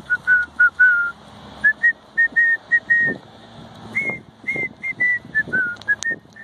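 A person whistling a tune: a string of short, clear notes stepping up and down in pitch, a few held a little longer.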